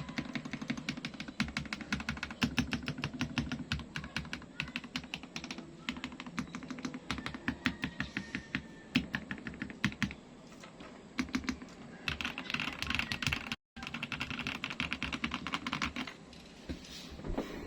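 Typing on a foam-dampened, tape-modded RK84 mechanical keyboard with Akko Mirror switches and PBT keycaps. Keystrokes come fast and dense for about ten seconds, then thin out to scattered strokes over a soft hiss.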